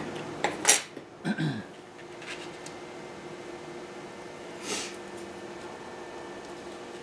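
A few light clicks and taps as a small circuit board and a thin plastic solder-paste stencil are handled and laid on a workbench, mostly in the first two seconds, over a steady hum.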